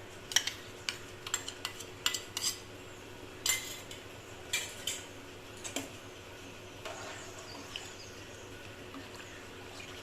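A spoon clinking and tapping against the metal pot of a pressure cooker, a dozen or so sharp clinks in the first six seconds, then softer scraping as it stirs. This is curd being spooned into the biryani pot.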